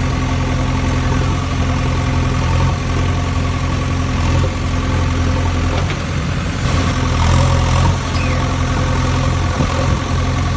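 A vehicle engine idling with a steady low hum, its pitch shifting slightly now and then.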